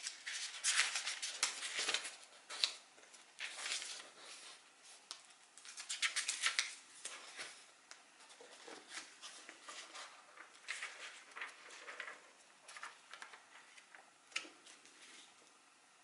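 Paperback book being handled and leafed through: pages rustling and flicking in quick bursts, loudest and densest in the first half, then lighter, scattered page turns.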